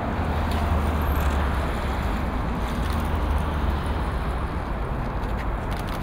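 Steady street traffic noise with a low rumble underneath.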